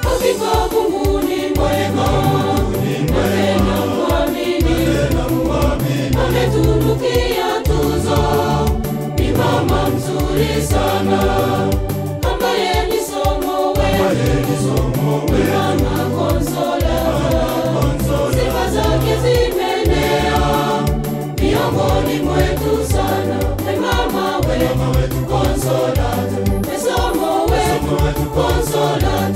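Choir singing a Kenyan Catholic gospel song over instrumental backing, with a steady, repeating bass line under the mixed voices.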